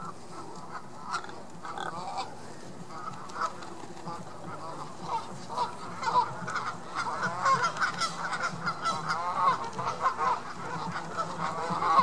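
A flock of Canada geese honking: many short overlapping calls, sparse at first and growing busier and louder about halfway through.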